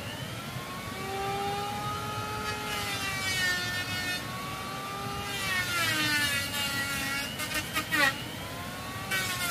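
A motor running, its pitch rising and falling slowly, with a few quick dips and recoveries near the end.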